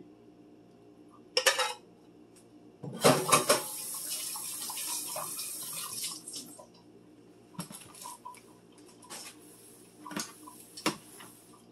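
Kitchen work sounds: a short clatter, then a loud clank followed by water running from a tap for about three seconds, then a few light clicks and knocks of dishes and utensils.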